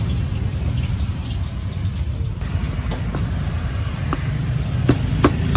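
Street ambience: a steady low rumble of road traffic, with a few sharp knocks near the end.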